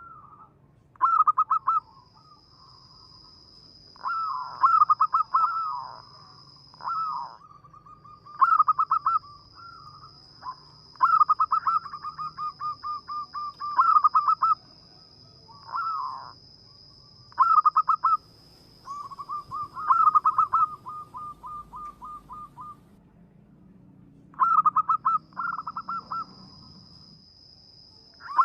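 Zebra dove (perkutut) cooing over and over: each phrase is a quick cluster of pulsed notes, several trailing off in a long even series of softer notes. A steady thin high whine sounds behind the birdsong and breaks off twice.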